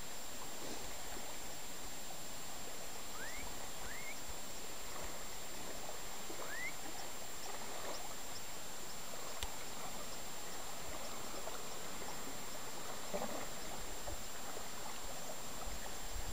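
Steady hiss of rippling water and light wind along a shoreline, with three short rising whistles a few seconds in.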